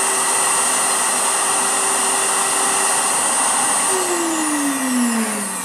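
The 3 hp JTC OmniBlend V blender's motor base runs at max speed with no jar fitted: a steady whine over a rushing hum. About four seconds in it is switched off, and the motor winds down in a falling whine.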